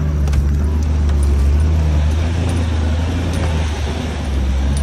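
80 Series Toyota Land Cruiser driving on a rough dirt track, heard from inside the cabin: a steady low drone from the engine and drivetrain, with a few short knocks and rattles.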